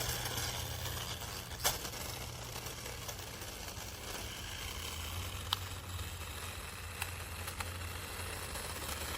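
Small electric motors of a toy remote-control stunt car running steadily as a low hum, with a few light clicks.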